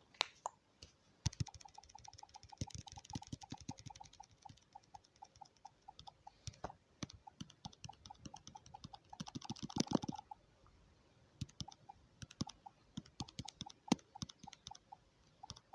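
A rapid, even run of clicks, each with a short beep, lasting most of the first ten seconds, then scattered clicks and taps.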